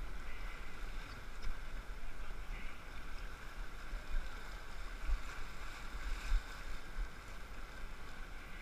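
Rushing whitewater around an inflatable raft floating down a rocky river, a steady hiss of moving water with a low, uneven rumble underneath.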